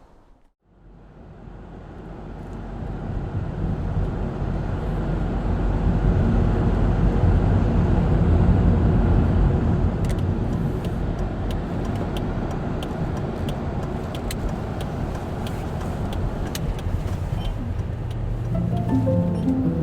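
A motor vehicle running, a dense low rumble that builds up over the first few seconds, with light clicks over it later on. Music comes in near the end.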